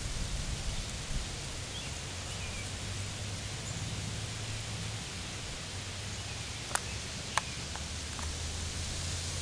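Steady outdoor background hiss with a low hum underneath. There are faint high chirps about two seconds in, and two sharp clicks about half a second apart near seven seconds in.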